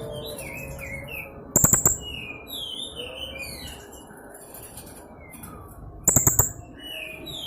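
Young blue-crowned hanging parrot (serindit) giving a run of quick, high chirps that slide up and down in pitch. Two loud, short rattling bursts come about one and a half seconds and six seconds in.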